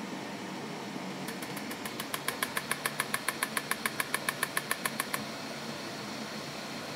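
Electromagnetic muscle-stimulation (EMShape) handles strapped on the thighs clicking in a rapid, even train of about eight pulses a second, starting faintly about a second in, growing louder, and stopping about five seconds in, over the machine's steady hum.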